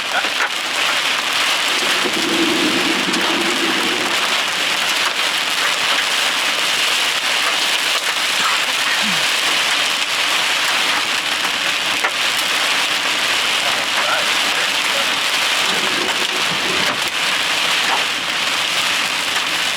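Heavy rain pelting steadily on a car's roof and windshield, heard from inside the vehicle during a high-precipitation storm.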